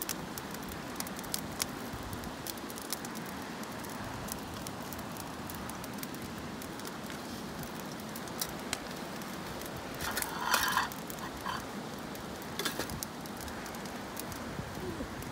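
Campfire of twigs and brush burning, a steady hiss of flames with scattered pops and crackles. About ten seconds in comes a louder flurry of crackles and pops.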